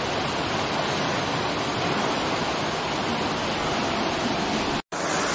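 Floodwater rushing down a street: a steady, dense roar of flowing water. It breaks off for an instant near the end, then carries on.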